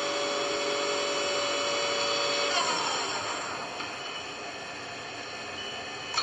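Southwest Industries Trak 1840SX CNC lathe spindle running smoothly at about 800 RPM with a steady whine, then winding down about two and a half seconds in, its pitch falling as it gets quieter.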